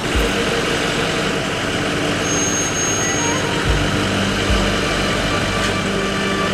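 Armoured military jeep's engine running steadily, with a few dull low thumps.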